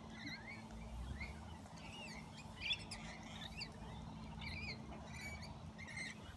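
Lorikeets and other parrots chattering at a feeding spot: scattered short, high chirps and squeaks, fairly faint.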